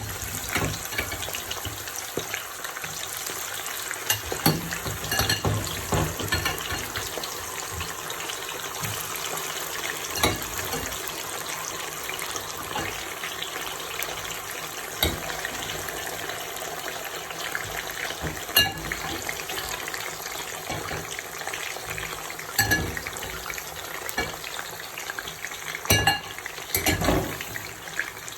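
Cassava pieces sizzling steadily as they deep-fry in hot oil, with occasional sharp knocks and clinks.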